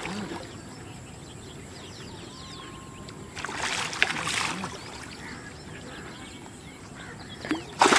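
A hooked catla thrashing at the surface of shallow lake water as it is drawn in on a handline, with a loud burst of splashing about three and a half seconds in, then more splashing near the end.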